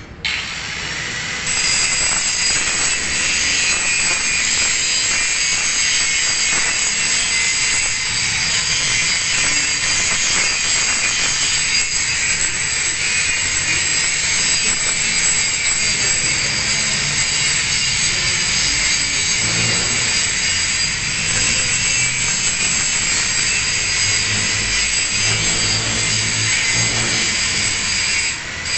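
Angle grinder with its disc grinding a single bevel on a steel plate: a loud, steady high whine with grinding noise. It starts right away and gets louder about a second in, then dips briefly near the end.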